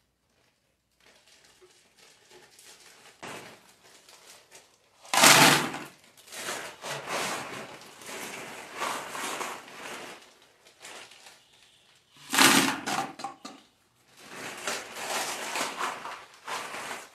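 Ice cubes tipped from a bag into a plastic bucket. There are two loud dumps, about five and about twelve seconds in, each followed by several seconds of clattering as the cubes settle and the bag is handled.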